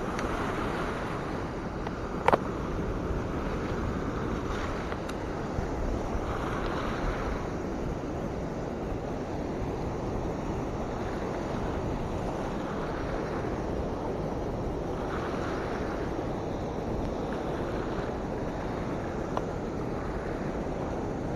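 Steady rush of turbulent water released through a dam's outlet gates, with wind buffeting the microphone. A single sharp click about two seconds in.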